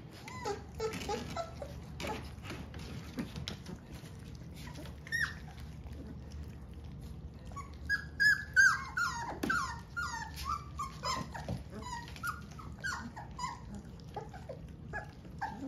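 A litter of young Rhodesian Ridgeback puppies whimpering and squeaking: many short, high, falling cries overlapping one another, thickest and loudest from about eight seconds in.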